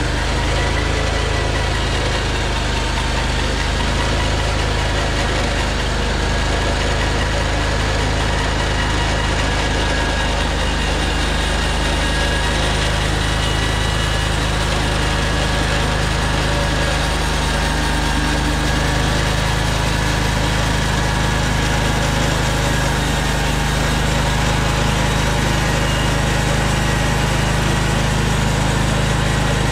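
Portable band sawmill running steadily, its engine at an even speed while the band blade cuts through a log as the head is pushed along it.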